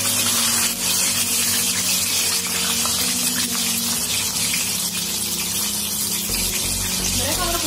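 Tofu-skin lumpia rolls deep-frying in hot oil: a loud, steady sizzle of bubbling oil around wet rolls.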